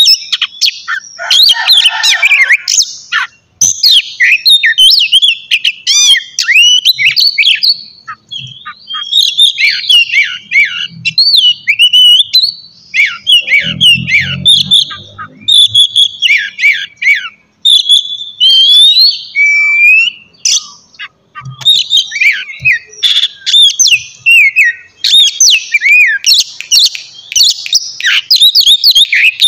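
Oriental magpie-robin (kacer) singing loudly and continuously: a fast, varied run of sweeping whistles, chirps and trills with only brief pauses.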